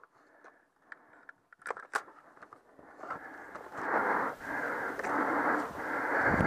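A few sharp clicks, then loud scraping and rustling from about three seconds in as a paintball player moves through wooden cover with his marker. The noise comes in uneven surges.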